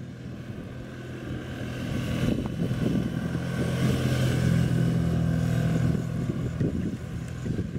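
Suzuki V-Strom motorcycle engine running steadily at low revs through a slow, tight turn. It grows louder as the bike passes close by about four seconds in, then fades.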